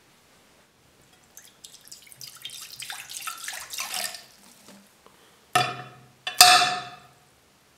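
White vinegar poured into a glass baking dish, splashing for about three seconds. Then the rusty metal areca nut cutter is set down in the dish: two sharp knocks of metal on glass, each ringing briefly.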